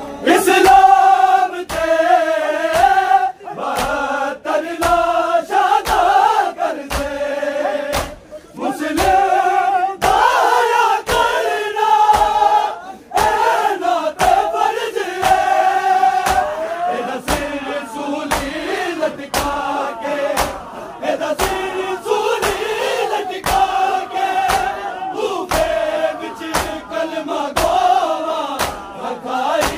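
Crowd of Shia mourners chanting a noha in chorus, with the sharp slaps of hands striking bare chests (matam) keeping a steady beat.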